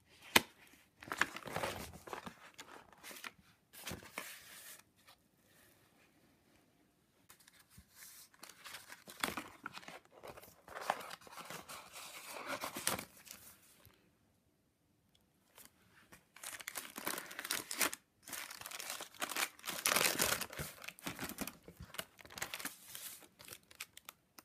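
Pages of a ring-binder junk journal being turned and handled: paper and plastic rustling and crinkling in irregular bursts, with a sharp click near the start and a pause of about two seconds past the middle.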